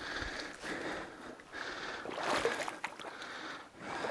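Water swishing and sloshing around a person's legs as they wade through deep marsh water, a surge with each stride every second or two.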